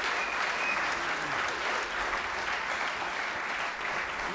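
Audience applauding steadily after a live song, fading slightly near the end, with a few faint voices in the crowd.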